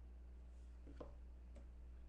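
Near silence: a low steady hum, with a couple of faint clicks about a second in.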